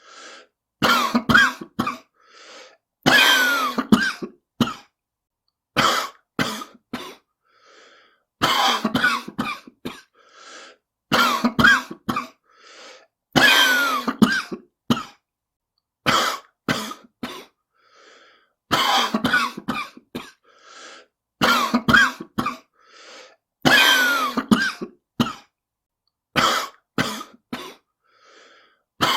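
A person coughing in repeated fits, a smoker's cough: about a dozen bursts, short sharp coughs alternating with longer drawn-out ones, and faint breaths between them.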